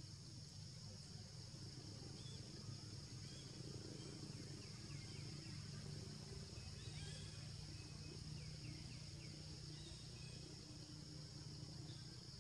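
Faint forest ambience: a steady high-pitched insect drone over a low rumble, with a few faint short chirps through the middle.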